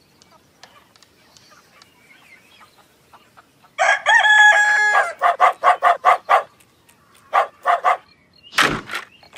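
A rooster crows, one long call starting about four seconds in, then a quick string of short calls and three more shortly after. Near the end a loud sound sweeps steeply down in pitch.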